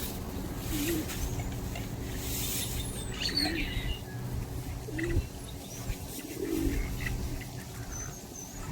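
Pigeons cooing, a short low coo every second or two, with higher chirps from other small birds.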